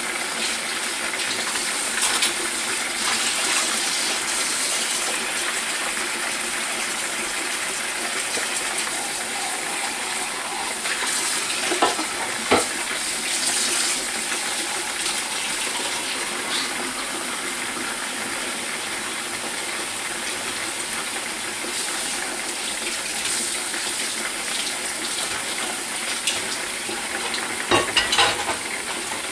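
A pork chop sizzling in hot oil inside a covered Presto electric fryer: a steady hiss with a few sharper pops, the loudest a couple of seconds in, near the middle and near the end.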